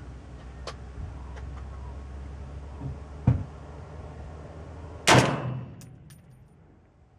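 A sharp knock about three seconds in, then about five seconds in a loud, sudden blast with a short fading tail: a shot from a custom .308 AR-10-type carbine with a 16-inch barrel and a Battle Comp muzzle brake.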